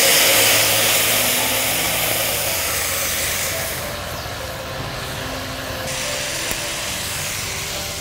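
Ginger frying in hot coconut oil in a wok: a loud, steady sizzle that eases off gradually, dropping further about six seconds in.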